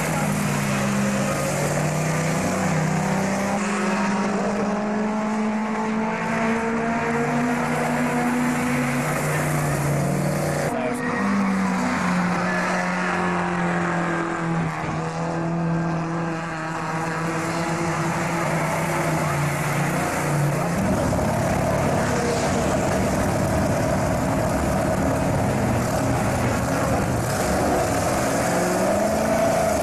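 Racing car engines at full speed on a circuit, rising and falling in pitch as cars pass and change gear, with another car coming through about 11 seconds in. From about 21 seconds a rougher engine runs steadily close by.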